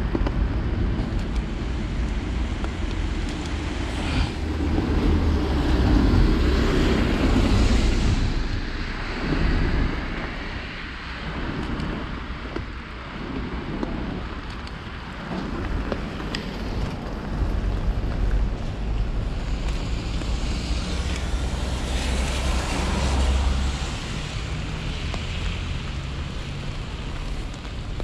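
Wind rumbling on the microphone over the hiss of a rain-wet street, with the tyre swish of passing cars on wet asphalt swelling up twice, a few seconds in and again around twenty seconds in.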